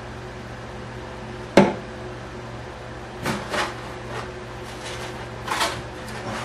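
One sharp knock, then a few softer clicks and short rustles from small parts and tools being handled on a workbench, over a steady low hum.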